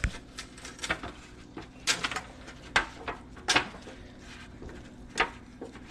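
Thin disposable aluminium foil pan crinkling with a handful of sharp clicks, spaced about a second apart, as hands press and roll filled lasagna noodles inside it.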